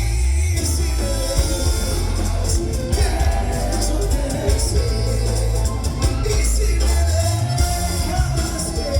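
Live band music with a singer, over a heavy, steady bass line.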